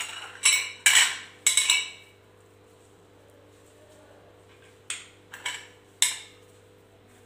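Hard clinks and clacks of kitchenware handled on a countertop: a quick run of about four knocks, then three more a few seconds later.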